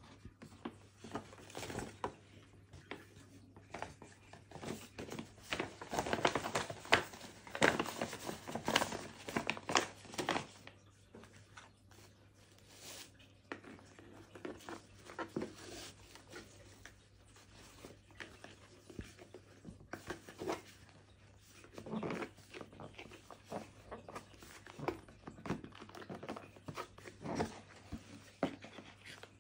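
Paper packaging rustling and crinkling as it is handled and unwrapped by hand, in irregular spells, loudest about six to ten seconds in. Tissue paper crinkles near the end.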